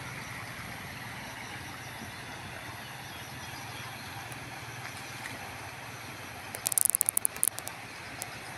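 Steady outdoor rushing noise with no clear pitch, with a quick run of sharp clicks about seven seconds in.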